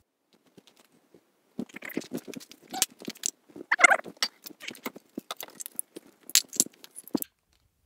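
Rattling, clicking and rustling as the Quickjack's coiled power and controller cables are unwrapped and shaken loose by hand. Plastic and cable parts knock against each other irregularly for several seconds.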